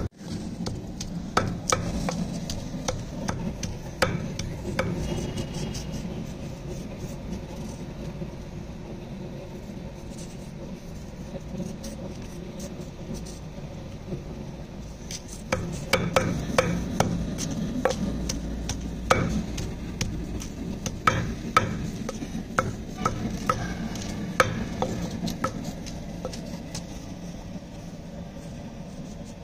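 Peeling and scraping a white radish (mooli) with a knife by hand: irregular scraping strokes and light clicks, busiest in the middle stretch.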